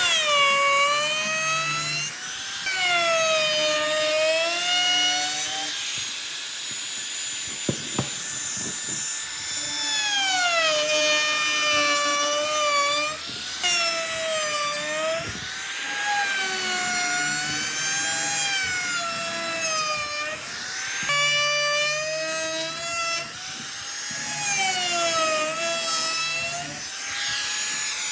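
A power tool working wood: a high whine with many overtones that wavers up and down in pitch every couple of seconds as the load changes, breaking off briefly a few times.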